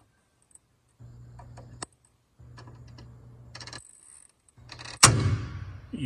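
A 24-hour mechanical dial timer being turned by hand, with a few faint ticks over a low hum. About five seconds in comes one loud sharp clack as a contactor switches over, the timer's contact having changed from one set to the other.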